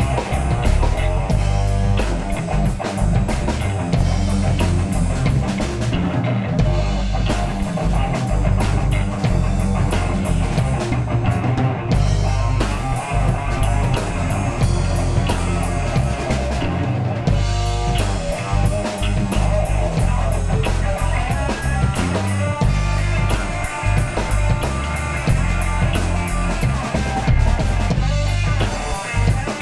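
Live rock band playing an instrumental passage with no vocals: guitar, bass guitar and drum kit, with heavy bass and steady drumming.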